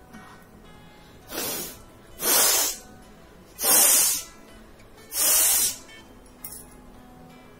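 A person blowing her nose hard four times, short blasts of air about half a second each, the first weaker than the other three. Faint guitar music underneath.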